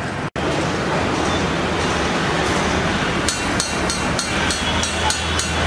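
Knife chopping a tomato on a flat iron tava griddle: quick sharp clicks of the blade striking the griddle, about three a second, starting a little past halfway. Under them is a steady background rumble.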